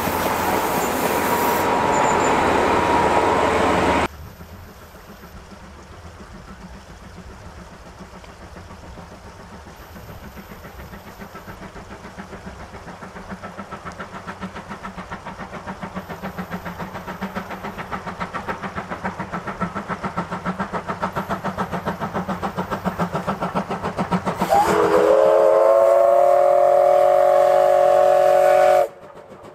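A diesel locomotive runs past for the first few seconds. After a cut, the C11 steam tank locomotive's exhaust beats grow steadily louder as it approaches, and near the end it sounds a loud steam whistle of several tones held for about four seconds.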